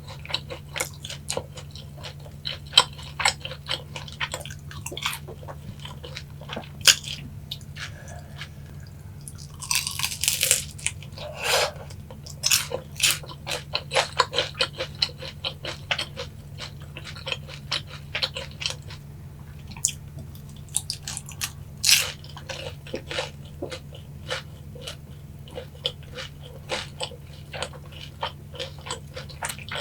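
Close-miked crunching and chewing of boneless sweet-spicy glazed Korean fried chicken: a run of crisp crackles with louder crunches about ten and twenty-two seconds in, over a steady low hum.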